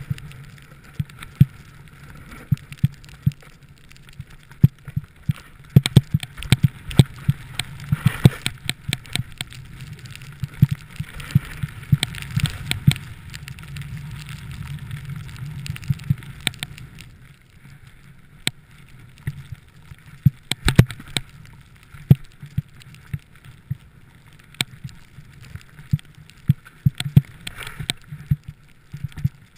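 Riding down a powder-covered slope: a steady rush of snow and wind, louder in the middle stretch, with frequent sharp knocks and clicks from bumps on the ride.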